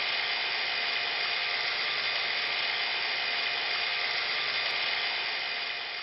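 Small DC-powered oil-free scroll vacuum pump running steadily with a whirring hiss, pumping a small vacuum chamber down through an opened butterfly valve.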